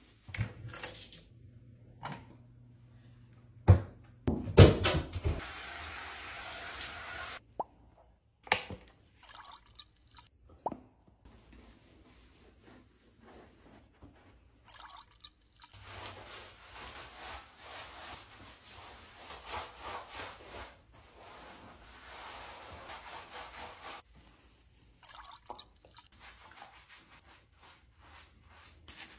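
Rubber and silicone grooming brushes scrubbing a wet dog's coat in a bathtub, with water dripping and plopping. The rubbing comes in several separate stretches with short quiet gaps between, and a few sharp knocks about four to five seconds in.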